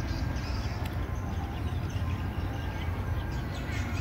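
Wind buffeting the microphone as a steady low rumble ahead of a rainstorm, with scattered faint high chirps over it.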